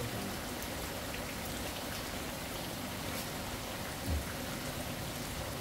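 Steady rain falling, an even hiss with scattered faint ticks. There is a short low thump about four seconds in.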